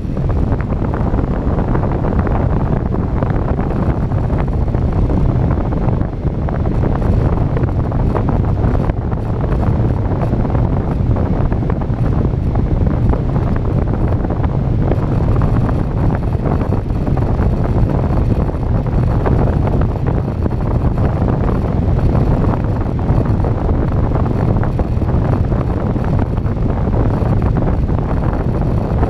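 Steady rush of wind across the microphone of an RC plane's onboard camera as the plane glides with its motor throttled to zero.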